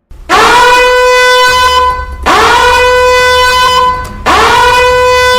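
Three long, loud horn blasts, each sliding up briefly into a steady high tone and held for about two seconds, with short gaps between them.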